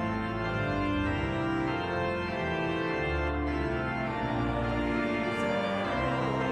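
Organ playing slow, sustained chords that change every second or so.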